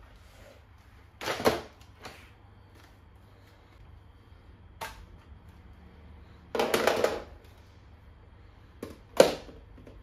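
Hard plastic clicks and clatter as the tube, handle and floor head of a Miele HX1 stick vacuum are unlatched and set down on a wooden floor: a couple of knocks about a second in, a single clack near the middle, a longer rattling bout a little later, and a sharp knock near the end, the loudest.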